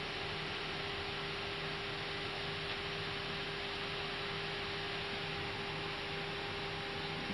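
Steady cockpit noise of an Airbus A320 on the ground: an even hiss with a constant hum.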